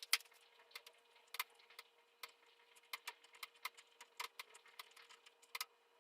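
Irregular sharp clicks and light taps, one or two a second, over a faint steady hum.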